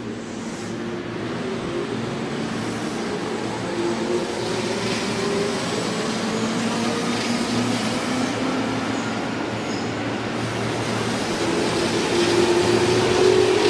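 Electric commuter train drawing nearer, growing steadily louder, with its traction motors whining in a few tones that slowly rise in pitch as it picks up speed.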